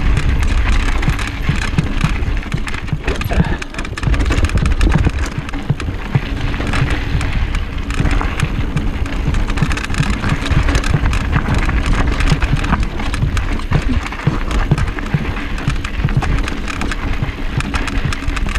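Trek mountain bike riding down a rocky trail: tyres crunching and rattling over gravel and rock, with many small clicks and knocks, over a steady low rush of wind on the microphone.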